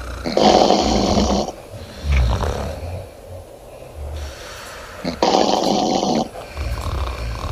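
A woman snoring loudly in her sleep: two rasping snores, each about a second long and about five seconds apart, with quieter low breaths in between.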